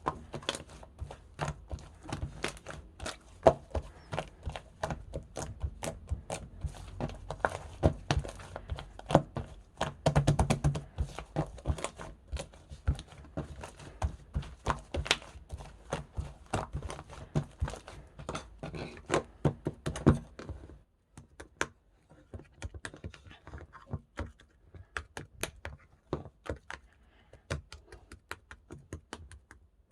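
Slime being worked by hand, giving a dense run of sticky clicks and pops that thins to scattered, quieter clicks about two-thirds of the way through.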